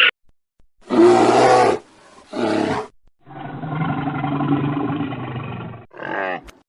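Lion roars and growls: a string of separately recorded calls spliced one after another, two short loud ones early on, then one long low roar lasting about two and a half seconds, and a short falling growl near the end.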